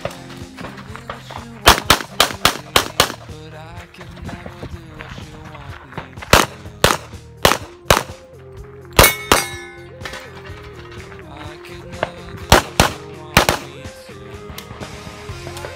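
Shots from an STI Edge .40 S&W competition pistol fired in fast strings during an IPSC stage: a rapid burst of about five shots, then several quick pairs, over background music.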